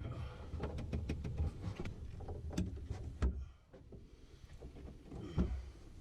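Handling noise from working on CPVC pipe and fittings: irregular small clicks and taps over a low rumble, with louder knocks about three seconds in and again near the end.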